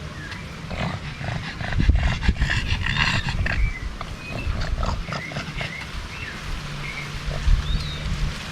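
Outdoor farm ambience: short, high chirping animal calls scattered throughout, with a louder, denser cluster of calls about two to three seconds in, over wind rumbling on the microphone.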